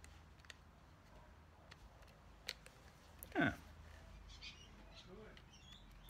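A few faint clicks from a Pentax Spotmatic film camera being handled and worked while its shutter is jammed and will not release. About halfway through, a brief louder sound drops sharply in pitch.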